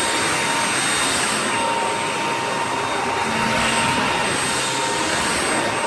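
Corded stick vacuum running steadily over a hard floor, a constant motor whine with a high tone over the rush of suction.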